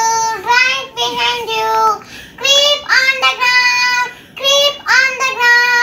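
A young girl singing a short rhyme in a high voice, in phrases with long held notes and brief pauses between them.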